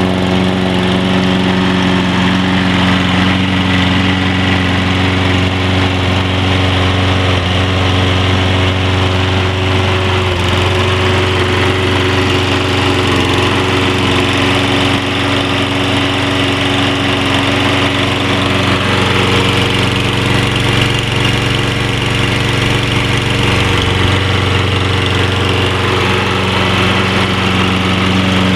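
Briggs & Stratton 190cc single-cylinder engine on a Toro Personal Pace Recycler walk-behind mower, running steadily just after an electric key start.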